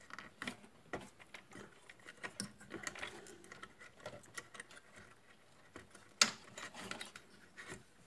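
Small irregular plastic clicks and knocks from working the push-pin fasteners of an Intel boxed CPU cooler by hand, with one louder click about six seconds in.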